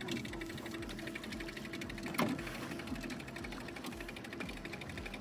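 Fishing reel being cranked fast to bring in a hooked fish: a steady, rapid mechanical whirring tick as line is wound on, with one sharp knock about two seconds in.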